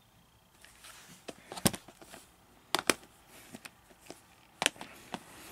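Blue plastic Blu-ray case being handled and set down, giving a few sharp plastic clicks: one, then a quick pair, then one more.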